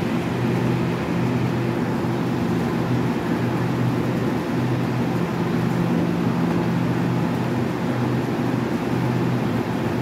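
TEMU2000 Puyuma Express tilting electric train standing at the platform, its onboard equipment running with a steady low electric hum.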